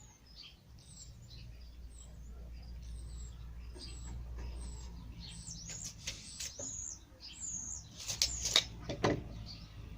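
Small birds chirping, short high falling notes repeated every second or so over a low steady hum. A few sharp knocks and clatters come in the last few seconds, the loudest of them near the end.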